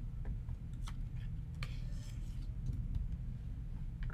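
Light rustling and a few short clicks of paper cutouts being handled and pressed down onto a collage sheet on a tabletop, over a steady low room hum.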